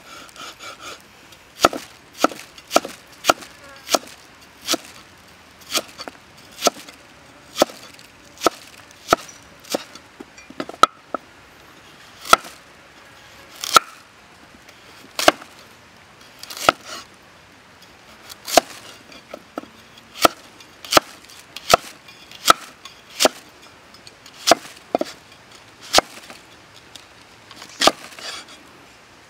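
Cleaver chopping onion and then carrots on a thick round wooden chopping block: sharp knocks of the blade striking the wood, roughly one a second, some in quick pairs.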